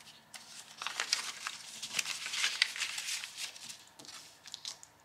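Paper rustling and crinkling as a banknote is slid into a paper cash envelope and the envelopes are handled, in an irregular run of soft rustles that dies away near the end.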